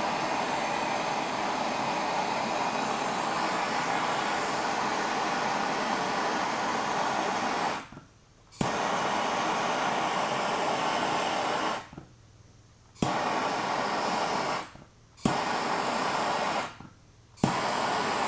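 Hand torch flame hissing steadily while heating lead body solder on a car panel. It goes out briefly four times, each time coming back on abruptly with a sharp click like a trigger igniter.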